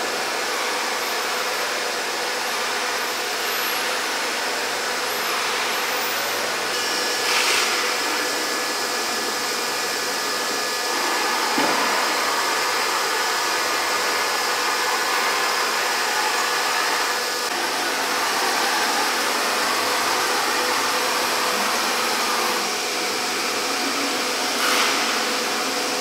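Multi-spindle CNC wood-carving router running: a steady whooshing whir with faint steady tones, and two brief louder swells, one about seven seconds in and one near the end.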